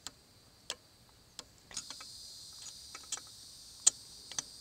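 Scattered light clicks and taps of small engine parts being handled while the carburetor and its linkage are fitted to a Predator 212cc engine. A steady high hiss comes in about two seconds in.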